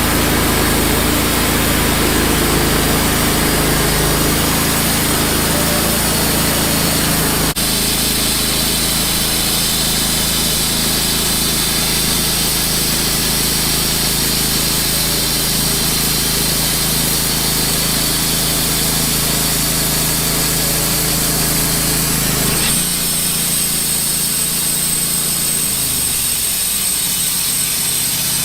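Wood-Mizer LT15 portable bandsaw mill running steadily as its blade saws through a soft maple log. There is a click about 7.5 seconds in, after which the sound grows brighter. The sound changes again about 23 seconds in, and a falling tone follows near the end.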